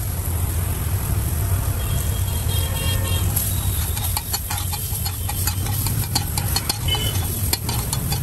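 A flat metal spatula scraping and clicking rapidly on a hot iron griddle, tossing chopped onion and tomato in butter as it sizzles; the clicking starts about halfway through. A steady low rumble runs underneath.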